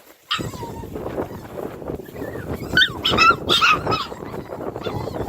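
Two-month-old puppies yipping and whimpering over a steady scuffling noise, with a cluster of short high yips about three seconds in.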